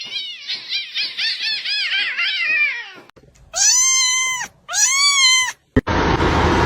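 Cat meowing: first a quick run of short, high mews, each rising and falling, then two long drawn-out meows about a second apart. Near the end a different, noisy sound cuts in abruptly.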